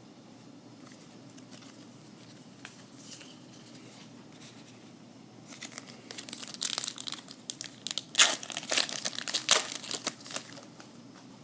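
A baseball card pack's wrapper being torn open and crinkled, a run of crackling rips for about five seconds starting past the middle.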